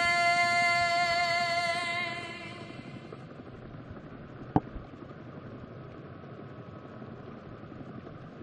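A long held musical note with a slight vibrato fades out over the first two to three seconds. After it comes a steady low noisy hum, broken by a single sharp click about four and a half seconds in.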